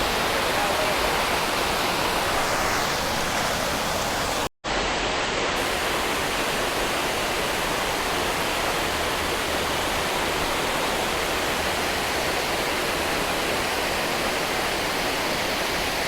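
Steady rush of water pouring over a spillway. It cuts out for a split second about four and a half seconds in, then carries on unchanged.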